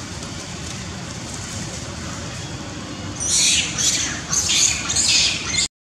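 Young long-tailed macaque giving shrill distress screams: four loud, high-pitched screeches in quick succession, starting about three seconds in.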